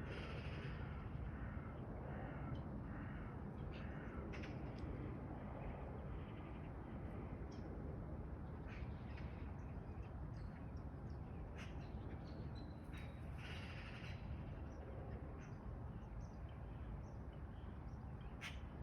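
Crow cawing: a quick run of short caws in the first few seconds and another longer call about two-thirds through, over a steady low background noise.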